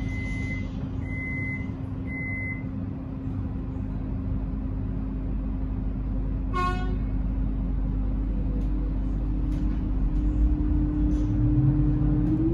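Interior of a Metro X'Trapolis electric train at a platform over a steady electrical hum. Three short high beeps sound in the first two and a half seconds, typical of the door-closing warning, and a brief horn toot comes about six and a half seconds in. From about ten seconds the traction motors start a rising whine as the train pulls away.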